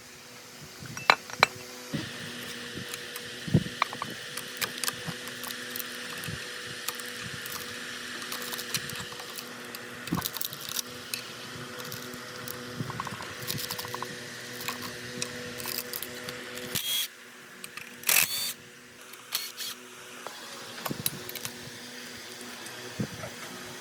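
A small electric power tool's motor running steadily, starting about two seconds in and stopping about seventeen seconds in, with scattered sharp clicks and taps of metal parts being handled throughout.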